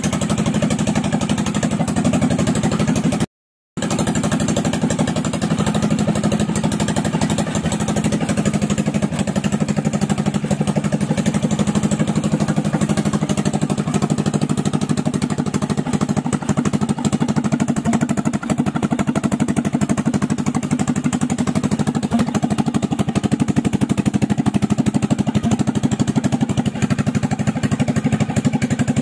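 Pro-Quip ZS Power 679cc stroke-up engine running at a steady speed, with rapid even firing pulses. The sound cuts out briefly about three seconds in.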